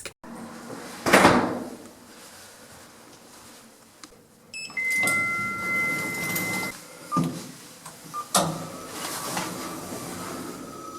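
Kone EcoDisc passenger lift: a thump, then a steady two-pitch electronic tone held for about two seconds as the doors move. Sharp clunks and sliding-door noise follow.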